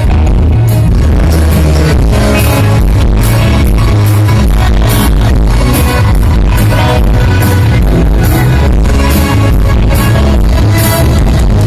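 Live rock band playing loud, with heavy bass and a steady drumbeat, recorded in a way the uploader calls bad sound quality.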